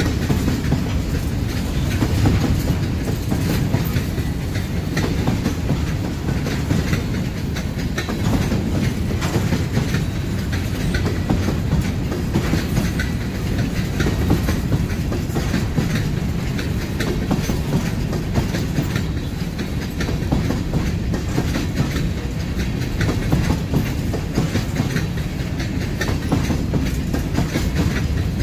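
Freight train's covered hopper cars rolling past: a steady rumble with a continual clickety-clack of wheels over rail joints.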